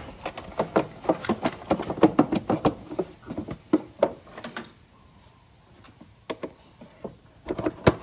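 Plastic battery cover of a 2005 Chevy Equinox clicking and knocking as it is slid and pressed into its housing: a quick run of clatters for about four and a half seconds, a quiet spell, then more clicks near the end.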